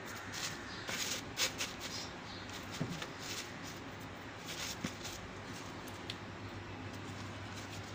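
Soft, intermittent rustling and crinkling as coriander leaves are handled and pressed into a tissue-paper lining, the strongest rustles in the first few seconds. A steady low hum runs underneath.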